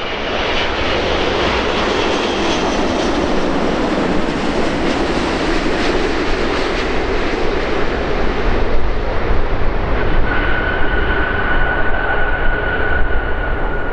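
Air France Airbus A380's four Engine Alliance GP7200 turbofans roaring as the airliner passes low on final and lands. About ten seconds in, after touchdown, a steady high whine joins the roar.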